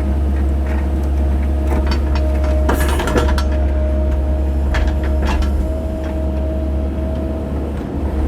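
A mini excavator runs steadily under load, its diesel engine giving a low drone with a steady hydraulic whine over it. A few clunks and knocks come about three seconds in and again about five seconds in as the bucket works the wet mud.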